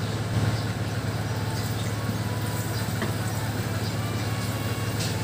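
A steady low hum runs throughout, with a few faint taps and scrapes of a spatula against a nonstick frying pan as a pancake is turned.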